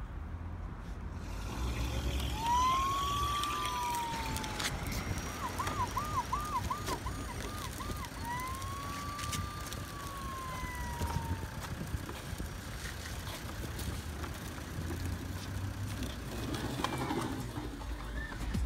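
Electronic siren of a toy ambulance: a slow rising-and-falling wail, then a quick yelp of about seven fast up-and-down sweeps, then another slow wail.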